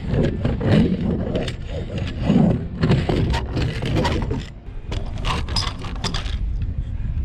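Scraping with many irregular knocks and clatters over a steady low rumble.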